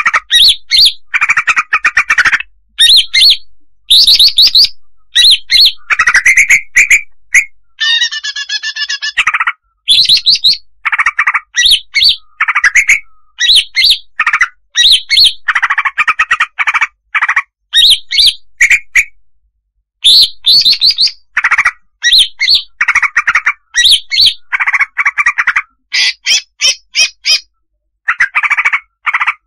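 Female green leafbird (cucak hijau) calling: rapid chattering runs of short chirps and harsher notes, with a longer warbling phrase about eight seconds in and brief pauses twice later on.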